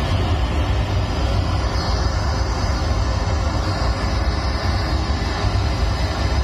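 Pink noise test signal played loud through a sound-system speaker stack, a bass box with a top cabinet, for tuning: a steady, even hiss with a heavy low rumble.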